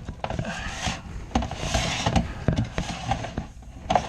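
Dryer vent cleaning brush and its flexible rods worked by hand in a lint-clogged vent duct: irregular scraping and rustling with scattered knocks and clicks.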